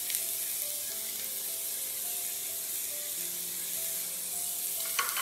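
Chopped onion, capsicum, green chilli and tomato sizzling steadily in hot oil in a frying pan, with quiet background music.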